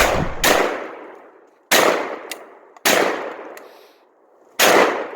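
Escort SDX12 12-gauge semi-automatic shotgun firing five shots in quick succession, roughly a second apart with the first two close together. Each report echoes away.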